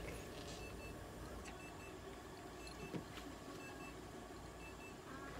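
Faint electronic double beep repeating about once a second, from clinic equipment, with a single soft knock about three seconds in.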